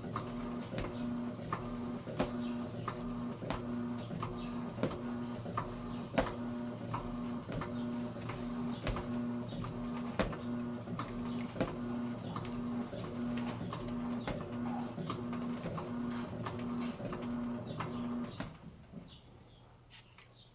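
Electrolux Essential Care 11 kg top-load washing machine agitating a load of curtains: the motor hums in short, even strokes, about one and a half a second, with scattered clicks, and stops near the end.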